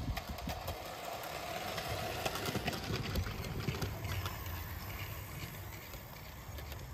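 Model Deltic diesel locomotive and its coaches running along garden railway track, with a run of light clicks from the wheels over the rail joints, a faint whine in the first few seconds, and a low rumble underneath.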